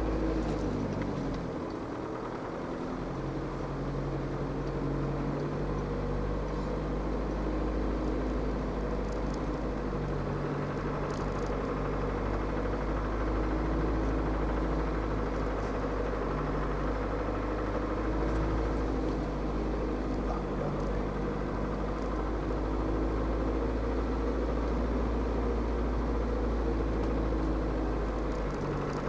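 Land Rover Defender 110 300Tdi's 2.5-litre four-cylinder turbodiesel running at low, steady revs, heard from inside the cab as the vehicle descends a steep snowy road, with a deep rumble underneath.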